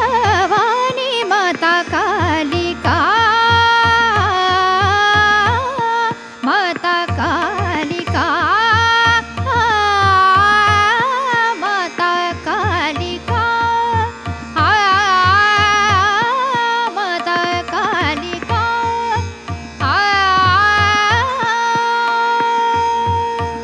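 A woman singing a Hindustani classical bandish in Raag Adana, in ornamented phrases that glide between notes, over instrumental accompaniment with a low rhythmic beat that drops out briefly every few seconds. Near the end she holds one long steady note.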